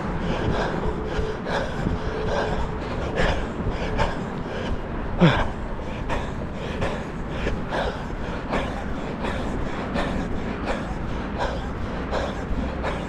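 A runner's steady rhythm of footfalls and heavy breathing, a stroke about every 0.8 seconds, over wind rumbling on the microphone.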